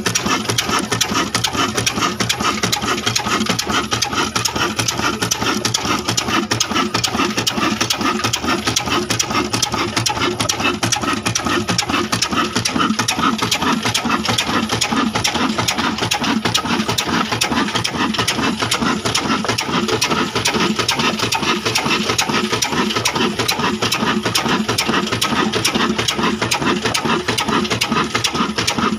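Old stationary diesel engine running steadily with a rapid, even clatter, turning its flywheel and a flat drive belt.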